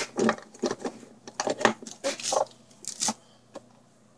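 Small items being handled and set down on a surface: a string of short clicks and light clatters, dying away about three and a half seconds in.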